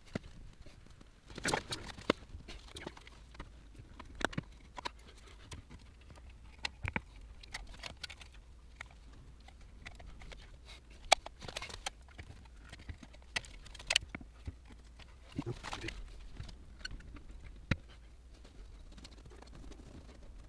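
Scattered clicks, taps and light scrapes from hand work on a basement window being replaced, coming at irregular intervals, with a sharper click about halfway through.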